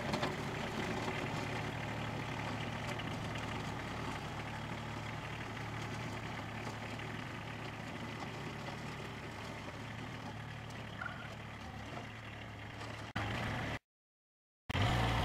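Compact tractor engine running steadily as the tractor with front loader drives away, slowly growing fainter. Near the end the sound cuts off abruptly into silence.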